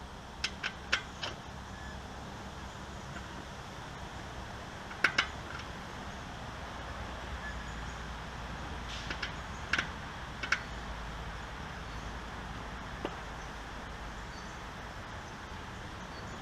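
Scattered short clicks and taps from handling a fat-bike tire and inner tube as the tube is tucked back into the tire, over a steady low hum.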